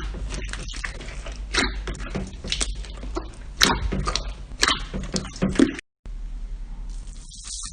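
Slime being squeezed and poked by hand, making irregular wet clicks, pops and squelches, with a sudden break about six seconds in followed by softer squishing.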